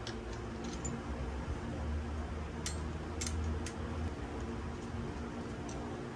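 Light metallic clicks of a hand wrench and bolt being worked while a Harley-Davidson foot peg is test-fitted: one near the start and three about half a second apart near the middle, over a steady low background hum.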